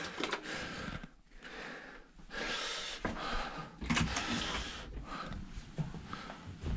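Rustling and handling noise with a few short knocks and clicks, as someone carrying a bag goes out through a hotel room door into a corridor.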